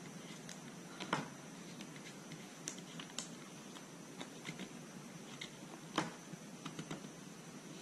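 Fingers pressing and rubbing a wet vinyl decal against a Bell Bullitt helmet's shell, making faint scattered clicks and squeaks. The loudest come about a second in and again about six seconds in.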